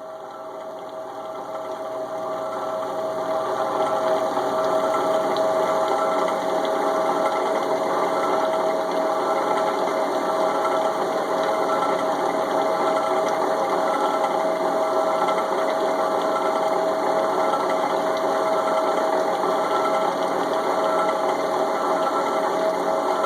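Electric jigsaw running steadily with a strong steady hum, growing louder over the first few seconds and then holding; the reciprocating mechanism pumps air in and out of the crankcase.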